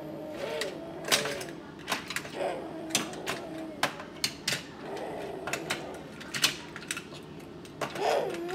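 Die-cast toy cars clicking and clacking, in irregular sharp knocks, as they are picked up, set down and knocked against each other on a play track. Under the clicks a child's wordless voice glides up and down in pitch a few times, loudest near the end.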